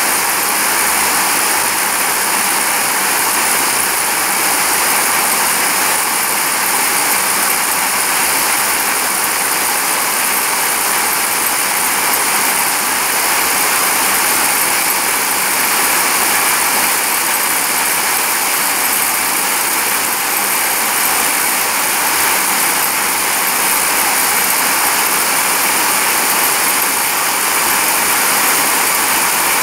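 Ring twister doubling machine running, its rows of spindles spinning bobbins as they twist yarn. It makes a steady, even, hissing whir with no change in pace or level.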